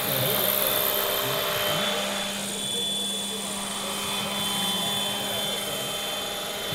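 Electric radio-controlled scale Sikorsky H-5 helicopter on Align T-Rex 500 mechanics, with a Scorpion electric motor and three-bladed rotor head, flying past: a steady whine over the whir of the rotor. It is loudest for the first couple of seconds.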